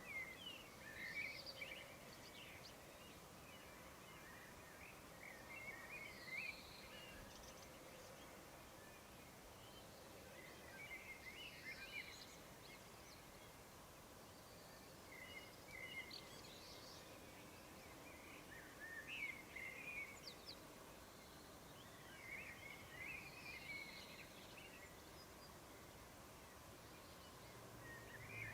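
Faint outdoor morning ambience: birds sing short, twittering phrases every few seconds over a steady low hiss.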